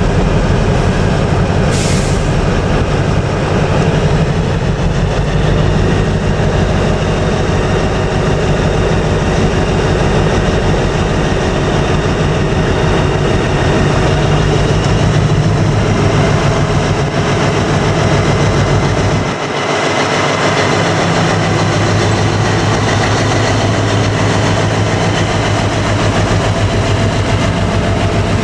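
Class 60 diesel locomotive's eight-cylinder Mirrlees engine running as it slowly passes with a train of box wagons. Its low note dips briefly about two-thirds through, then settles into a steadier hum.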